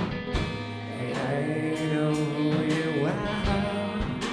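Live rock band playing: sustained guitar chords, drum and cymbal hits, and a voice singing over them.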